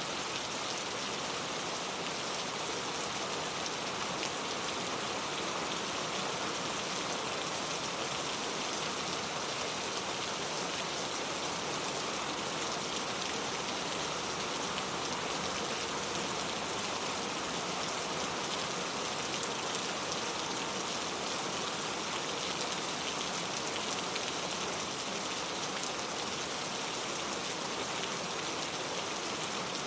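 Rain falling steadily: a dense, even hiss of drops with fine scattered pattering.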